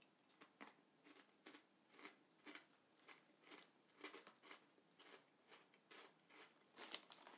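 Someone chewing thick ridged double-crunch crisps in their mouth: faint, dry crunches about twice a second, described as very crunchy.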